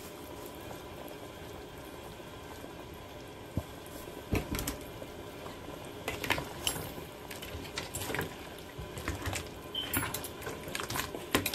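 Chicken and potato curry bubbling at a steady simmer in a pot. From about four seconds in, a spoon stirring through it gives scattered short clicks and knocks against the pot.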